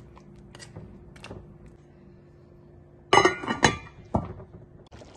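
A few faint scrapes of a spatula in a pot of curry, then an aluminium lid set down on the metal pot with a loud clatter of knocks about three seconds in, and one more knock soon after.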